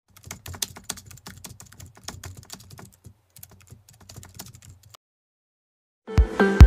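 Keyboard typing sound effect: a quick, irregular run of light key clicks for about five seconds, then a short silence. Music starts near the end with a deep bass hit.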